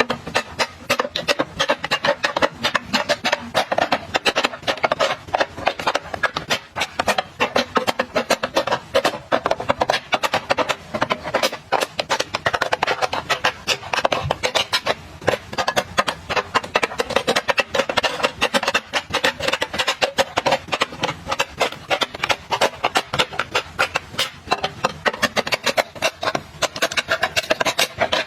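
Rapid, dense clicking and tapping of small hard objects, many clicks a second with no let-up.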